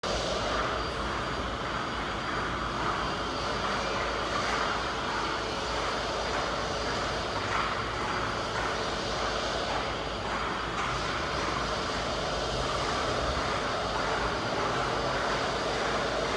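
Steady mechanical drone at an even level, with a faint constant hum under it, like fans or machinery running in a large hard-walled room.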